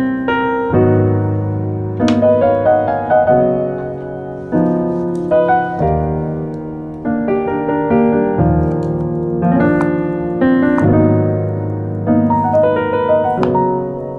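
Background piano music: slow chords and melody notes struck every second or so and left to ring.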